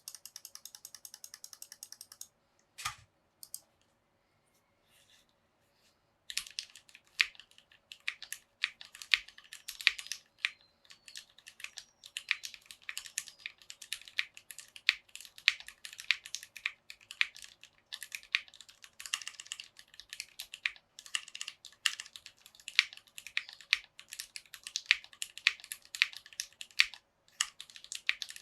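Typing on a Tofu60 mechanical keyboard with Cherry MX Black linear switches and PBT keycaps, the acrylic case mounted on O-rings. A quick, even run of clicks comes first, then a single knock and a short lull, then steady typing from about six seconds on.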